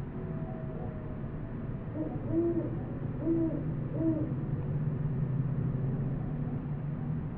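Great horned owl hooting: three short, low hoots in quick succession, about a second apart, over a steady low background rumble.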